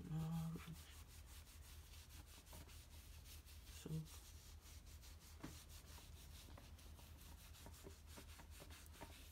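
Faint rubbing of a soapy washcloth scrubbing a bare foot, with scattered soft ticks over a steady low hum. A short low-pitched sound comes at the start and again about four seconds in.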